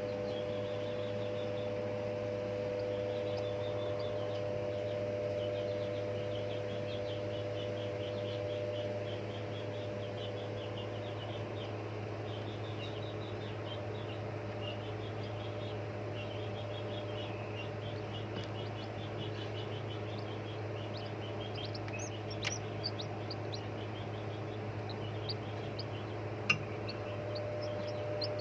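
Small parrots chirping and chattering without pause, with a few sharper, higher calls near the end, over a steady low hum.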